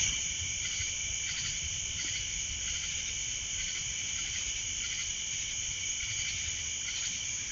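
Steady, shrill chorus of insects, unbroken throughout, with a low rumble underneath.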